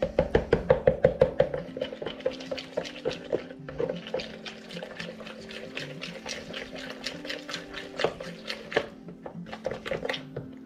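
A spoon beating a sticky peanut-butter and egg batter in a plastic mixing bowl: quick knocks and clicks against the bowl, about five or six a second, loudest in the first couple of seconds and easing off after. Background music with steady held tones plays underneath.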